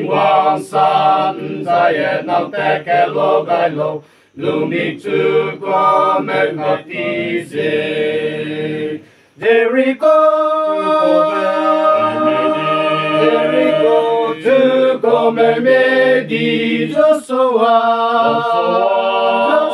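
A group of voices singing unaccompanied in harmony: quick, short notes at first, with brief breaks about four and nine seconds in, then long held chords.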